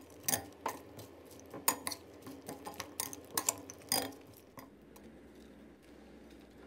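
A metal spoon clinking and scraping against a glass bowl while tossing crispy fried catfish salad: a string of sharp clinks that stops about four and a half seconds in.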